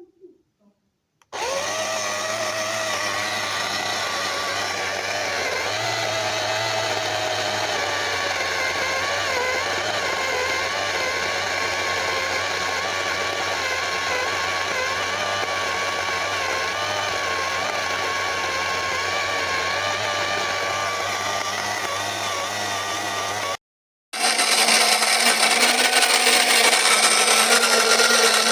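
Wancle electric flat burr coffee grinder running with a steady motor whirr that starts about a second in. It breaks off near the end and starts again louder.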